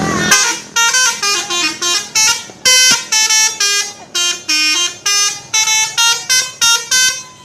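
Bus's telolet horn, a multi-tone musical horn, playing a quick tune of short toots at changing pitches, about three a second, starting about half a second in.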